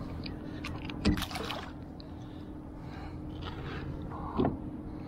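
Water sloshing around a small boat over a steady low hum, with two louder splashes about three seconds apart.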